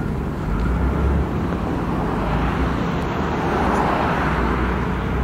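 Road traffic at a busy street crossing: a steady low rumble of engines. A vehicle passing close by swells up about three seconds in and fades about a second and a half later.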